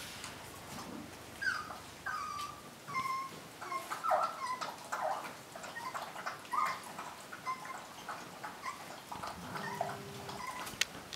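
A puppy whimpering and squeaking: many short, high cries, often sliding down in pitch, coming irregularly throughout.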